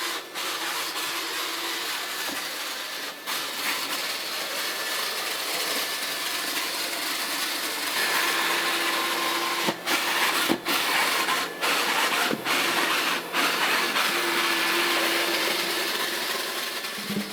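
Sichler NX-9644-675 robot vacuum running as it sweeps up scattered debris on a hard floor: a steady motor and suction hiss with a faint whine, broken by several sharp clicks and knocks.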